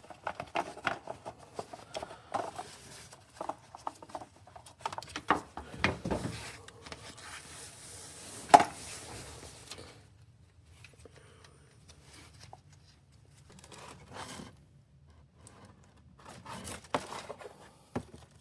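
Irregular small clicks, taps and rustling of hands handling hard objects, with one louder sharp knock about 8 seconds in, then quieter from about 10 seconds with a few more taps near the end.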